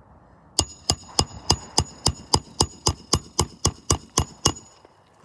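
Claw hammer driving a nail into asphalt roof shingles: about fifteen quick, even strikes, roughly four a second, each with a short metallic ring, starting about half a second in and stopping near the end.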